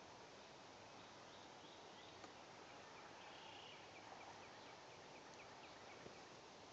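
Near silence in woodland: a faint steady hiss, with a bird giving a quick run of short high chirps, about five a second, starting about two and a half seconds in and lasting under two seconds, and a couple of faint ticks.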